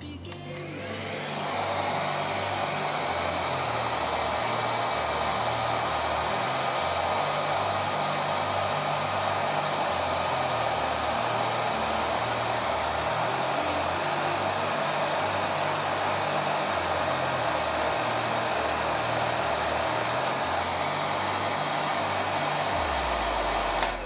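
Koryo 1600 W hair dryer blowing: a steady rushing hiss of fan and air that builds up over the first second or so and cuts off suddenly near the end when it is switched off.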